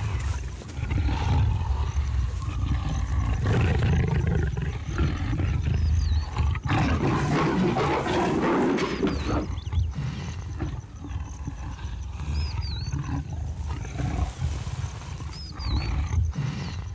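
Leopards growling during mating, a low continuous growl that swells loudest around the middle. A bird gives a short hooked chirp every few seconds.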